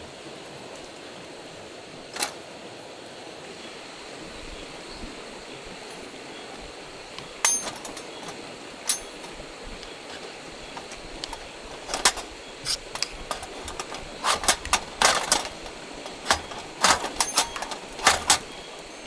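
A ferro rod struck with the spine of a knife, a run of quick sharp scrapes throwing sparks onto cotton tinder in a small metal wood stove, coming thick and fast in the second half. A few separate clicks come earlier, over a steady background hiss.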